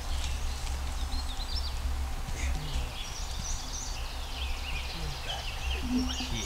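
Woodland ambience: small songbirds chirping and trilling on and off, over a steady low rumble.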